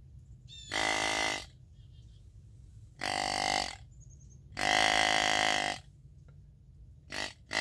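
Hand-blown deer grunt call with flexible tubing set to the mature-buck grunt: three drawn-out low grunts, the third the longest and loudest, then two short quick grunts right at the end.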